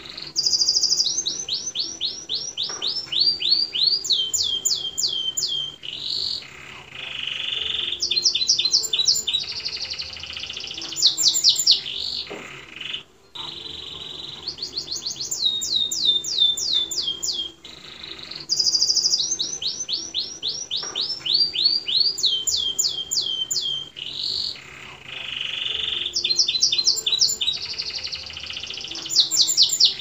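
Domestic canary singing a continuous rolling song. Tours of high, quickly repeated notes each slide downward, broken by buzzy rolls, and the same sequence of phrases comes round again about every thirteen seconds.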